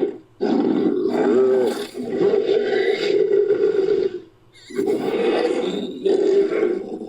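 Designed Concavenator dinosaur creature sound effect: a long, deep roar of about four seconds, then after a short break two shorter roars in quick succession.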